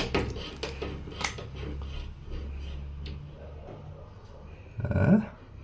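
Light handling taps and clicks at a table, with a few sharp clicks in the first second or so. A short, louder rising sound comes about five seconds in.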